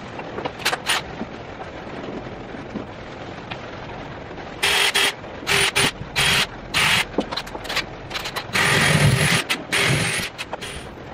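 Cordless drill run in short stop-start bursts, drilling through a wooden batten into the wall, with one longer, heavier run near the end. Before the drilling starts there are only a few light clicks and knocks.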